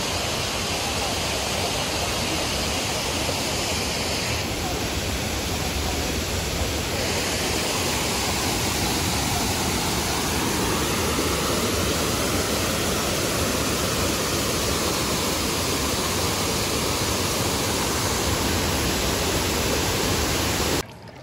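Loud, steady rush of a large waterfall, the water pouring and crashing; it cuts off suddenly near the end.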